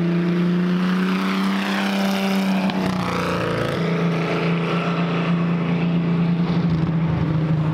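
Engine of a vintage coupe-bodied race car running at a steady, loud drone as the car drives past on the track. The note shifts briefly around two to three seconds in as it passes closest, then carries on as the car moves away.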